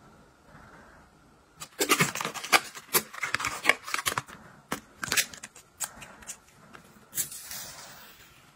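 Crinkling and clicking of plastic cosmetic packaging as a Tom Ford cushion foundation refill is unwrapped and handled, with a dense flurry of sharp clicks and crackles for a few seconds. Near the end comes a short rustle as the protective film is peeled off the cushion.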